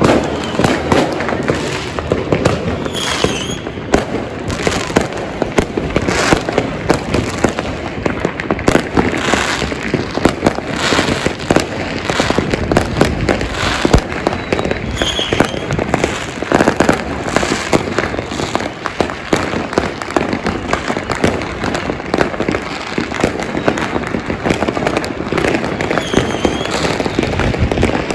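Many fireworks and firecrackers going off at once, a dense, unbroken barrage of overlapping bangs and crackling with no pause.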